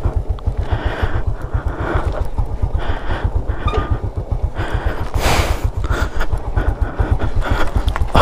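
Small motor scooter engine running with a rapid, even low putting, over the rattle and knocking of riding a rough dirt road; a brief rush of noise about five seconds in.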